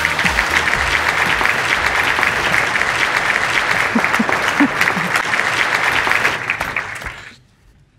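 Large audience applauding, which dies away quickly about seven seconds in.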